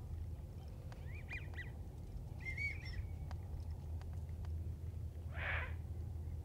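Faint whistles of wigeon working the pond: a few short calls that rise and fall in pitch, about a second and a half in and again around two and a half seconds, over a steady low rumble. A short breathy burst comes about five and a half seconds in.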